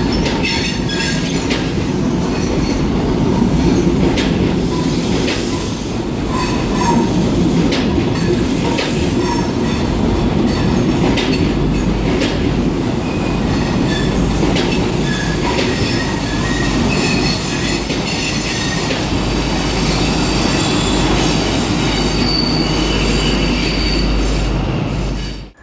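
East Midlands Trains High Speed Train coaches rolling past at low speed. A steady wheel-on-rail rumble runs throughout, with irregular clicks as the wheels pass over rail joints and thin high squeals from the wheel flanges.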